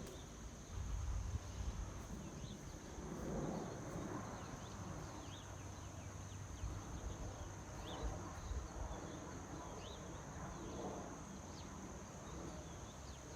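Faint low rumble of a descending airliner passing at about 3,500–4,000 feet, under a steady high-pitched chirring of insects.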